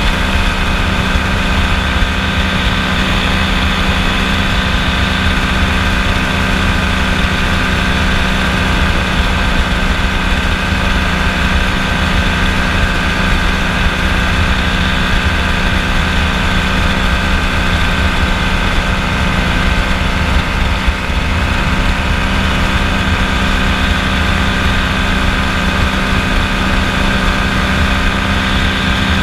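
Kolb FireFly ultralight's engine and propeller running steadily at constant throttle in flight.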